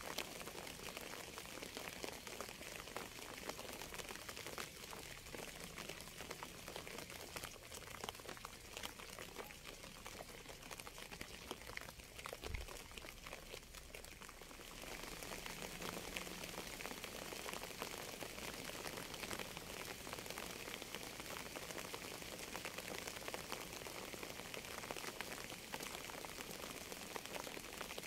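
Steady rain falling, a dense patter of fine drops. About halfway through it turns slightly brighter and fuller.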